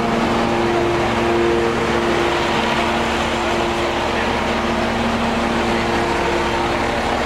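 Fire apparatus diesel engine running at a steady speed, giving an even hum. Voices murmur in the background.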